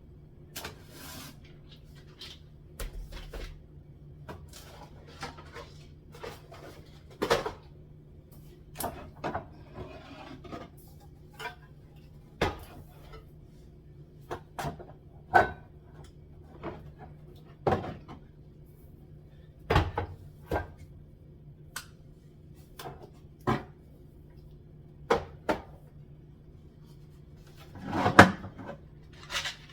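Food containers and packets being taken out of a kitchen cupboard and set down, with cupboard doors: irregular knocks, clicks and clatters every second or two, the loudest clatter near the end.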